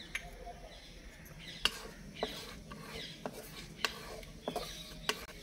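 A wooden spatula stirs fennel seeds, cloves and green cardamom roasting in hot ghee in an iron kadhai. It knocks and scrapes against the pan at irregular intervals over a faint sizzle.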